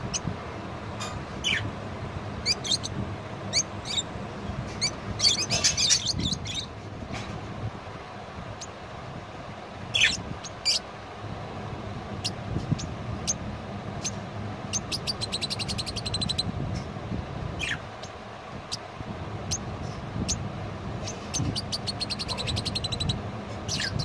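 Budgerigars chirping and chattering: scattered short chirps and a few whistled calls falling in pitch, with runs of fast clicking chatter three times.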